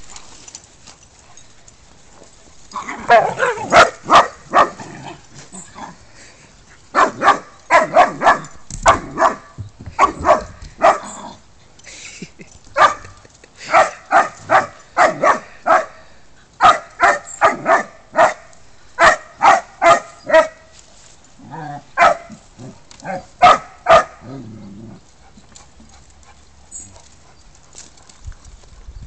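Dogs barking in quick runs of short, sharp barks with brief pauses between the runs, the play barking of a group of dogs roughhousing. The barking starts about three seconds in and dies away a few seconds before the end.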